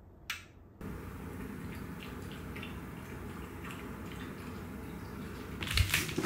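Steady low room noise with a few faint ticks, after a short sharp click a third of a second in; near the end a yoga mat is flung open and unrolled, a loud whoosh and flap that is the loudest sound.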